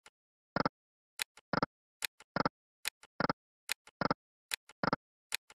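EGT Burning Hot online slot game sound effects during rapid automatic free spins: a sharp click followed by a short electronic tone, repeating about once every 0.8 seconds with silence between.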